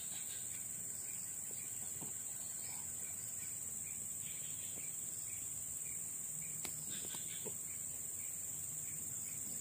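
Steady, high-pitched chorus of insects chirring without a break, with a few faint ticks.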